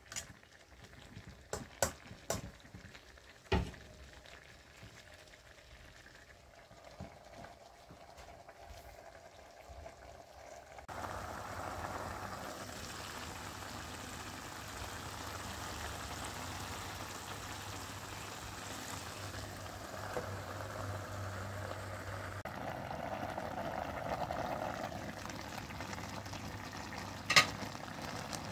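A metal spatula knocks against a steel wok a few times while stirring pork and jackfruit. From about eleven seconds in, the curry simmers and bubbles steadily in the wok under a low hum, with one sharp click near the end.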